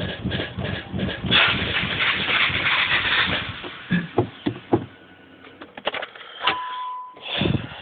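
Car engine running with an uneven pulse while misfiring (random-misfire code P0300), turning noisier for about two seconds, then dying away about five seconds in. A short single beep sounds near the end.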